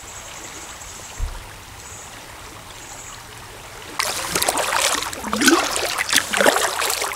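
Steady rush of river water with a few faint bird chirps and a single low thump. About four seconds in, it cuts to louder, irregular splashing and gurgling of water around a kayak being paddled down the river.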